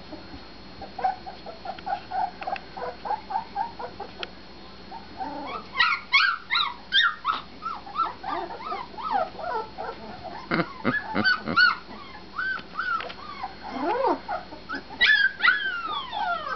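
A litter of young puppies whining and yipping. A string of short, lower yips about a second in gives way from about five seconds in to many high squeals that fall in pitch, with a thick cluster of them near the end.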